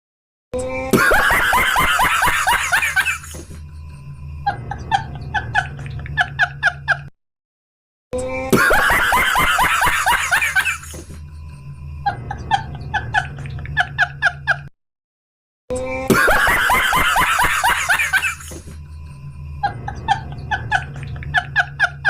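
A short laughter-like sound clip played three times in a loop. Each pass opens with a loud burst about 2 seconds long, then a quicker run of short high chuckle-like blips, with a brief silence before it starts again.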